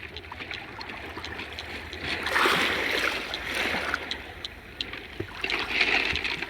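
Small waves washing onto the shore in two surges of rushing water, with light scattered clicking and rattling.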